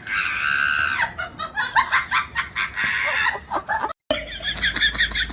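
Animal calls: one long held call at the start, then a run of short calls. After a sudden cut about four seconds in comes a fast series of short repeated calls.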